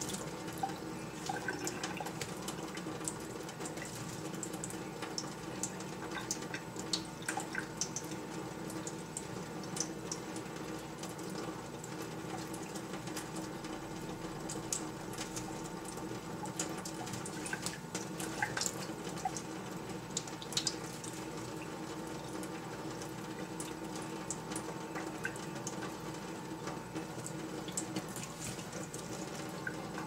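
Thin stream of water running from a kitchen faucet into a plastic funnel in a stainless steel sink. Scattered small splashes and flicks come through it as a green-cheeked conure flaps its wet wings under the stream.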